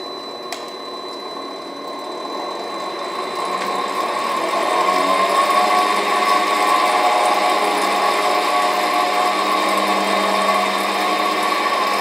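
Belt drive motor of a Hengli HSA1505 belt furnace, run by a variable-frequency drive, speeding up after its belt speed is raised to 100 mm/min. Its hum and whine grow louder over the first five seconds and then run steady. A single click sounds about half a second in.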